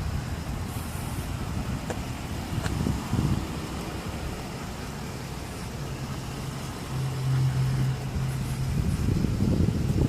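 Low rumble of a motor vehicle, with a steadier low hum that swells for a couple of seconds past the middle.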